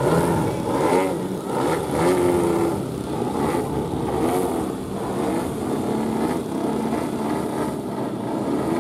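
Engines of two radio-controlled aerobatic model planes running in flight, revving up and down in pitch as the throttle changes through the manoeuvres.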